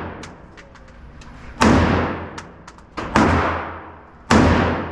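A series of loud gunshots at a shooting range, about one every 1.3 seconds. Each report echoes and dies away over about a second, with fainter sharp cracks in between.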